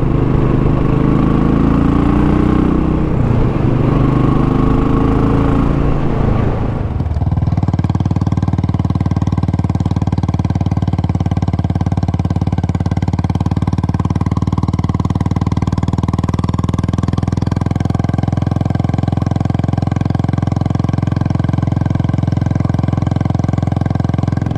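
Royal Enfield Classic single-cylinder motorcycle engine running at riding speed on the move. About seven seconds in, the sound changes abruptly to a steadier, even engine note that holds to the end.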